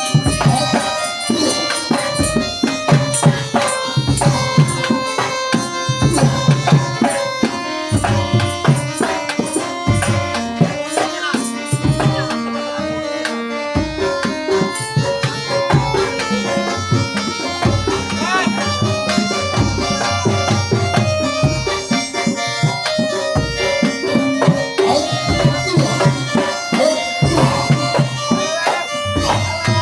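Traditional Javanese folk-performance music of the angguk/jaranan kind: hand drums beating a steady pattern, about one deep stroke a second, under a held, wavering wind-instrument melody.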